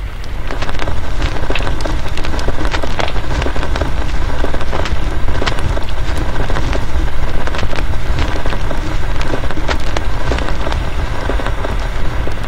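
Ambient noise soundscape played back by a Raspberry Pi noise toy: dense, irregular crackling clicks over a steady low rumble, swelling up about half a second in.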